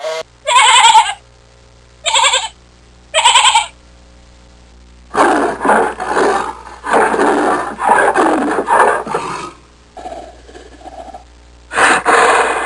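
A series of animal calls. There are three short wavering calls in the first few seconds, then a longer run of harsher calls. Two quieter low calls follow, and another loud call comes near the end.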